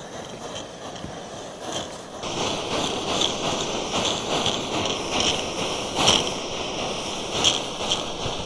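Primus Express Spider II remote-canister gas stove burning with a steady, very loud roar. Irregular short clicks and rustles sound over it from about two seconds in.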